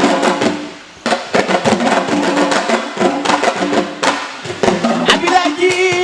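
Sabar drums playing a fast rhythm of sharp, dry strokes, with a short lull about a second in. A held sung note joins near the end.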